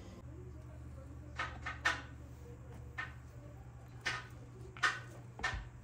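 A knife prying half-frozen paste cubes out of a silicone ice-cube tray on a stone counter: about six short clicks and taps, spaced irregularly, over a low steady hum.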